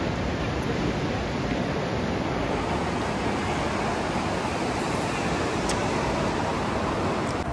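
Steady rushing ambient noise of a large indoor shopping-mall atrium, even and unbroken, with no single sound standing out.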